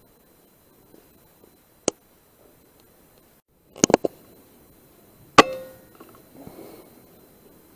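Air Arms S510 .177 PCP air rifle: a single sharp click, then a quick run of three metallic clicks, and about a second and a half later one loud, sharp shot with a brief ringing tail.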